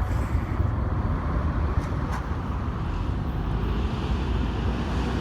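Loaded coal train's cars rolling past on the rails with a steady low rumble, and two faint clicks about two seconds in.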